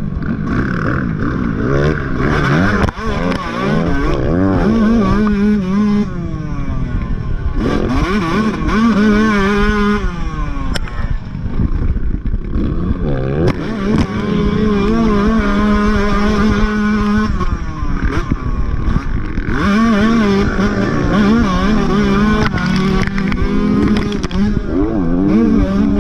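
Motocross dirt bike engines revving hard and shifting through the gears. The pitch keeps climbing and dropping, with stretches held at steady throttle, and more than one bike is heard.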